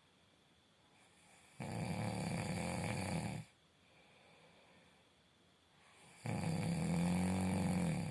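Snoring: two long snores about four and a half seconds apart, each lasting about two seconds, with faint breathing in between.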